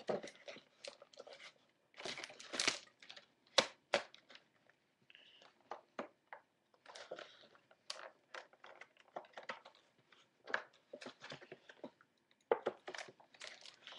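Packaging crackling and crinkling in short, irregular bursts of clicks as it is pried and pulled to free a computer mouse.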